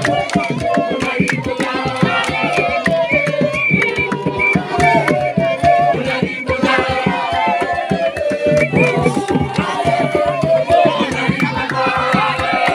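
Drums beating a fast, steady rhythm with voices singing over them.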